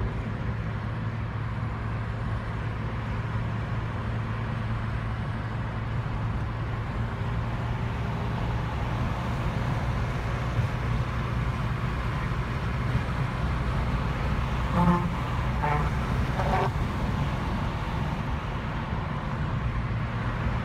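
Steady low drone of a car's engine and tyres, heard from inside the moving car's cabin. About three quarters of the way through, a voice makes three short sounds.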